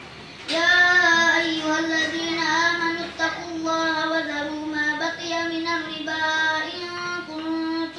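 A single voice chanting Qur'anic recitation in melodic tajwid style, from memory, beginning about half a second in with long held notes that bend and ornament in pitch, broken by short pauses.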